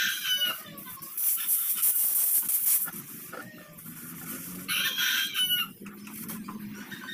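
A rooster crowing at the start and again about five seconds in. Between the crows, about a second in, comes a loud hissing noise lasting about a second and a half.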